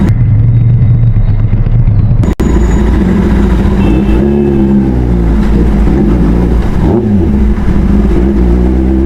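Kawasaki ZX-10R's inline-four engine at low speed, its pitch rising and falling with several throttle blips. The sound is dull for the first two seconds and drops out for a moment just after.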